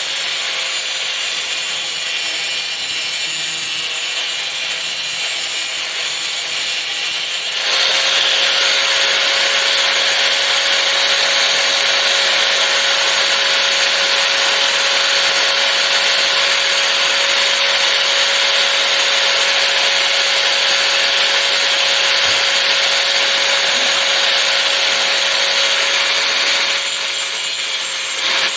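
Small power tool running under load, a steady whine over a grinding hiss. The hiss grows louder about eight seconds in and eases shortly before the end.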